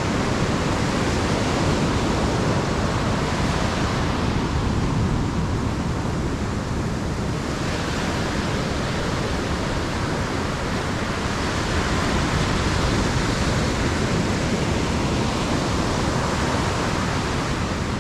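Ocean surf breaking and washing up the sand, a steady rushing noise.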